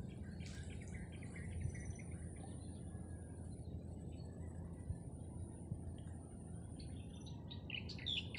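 Small birds chirping in short quick runs, about half a second in and again, louder, near the end, over a steady low rumble.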